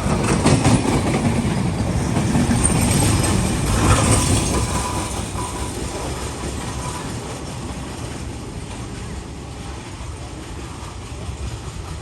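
Passenger train rolling past on the rails, its noise loud for the first few seconds and then dying away as it moves off.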